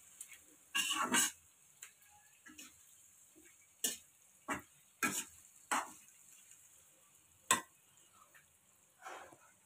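Metal slotted spatula scraping and clacking against an iron kadhai while stirring paneer and vegetables, in short, irregular strokes spaced about half a second to a second apart.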